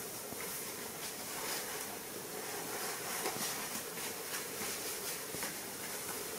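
Steady background hiss with faint, scattered rustles and soft clicks from the baby monkey's cloth dress being handled and adjusted.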